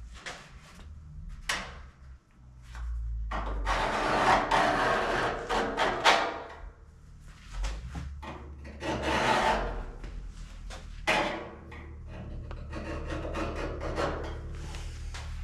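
Sheet steel being scraped and rubbed by hand in long rasping strokes, with a few short sharp scrapes in between.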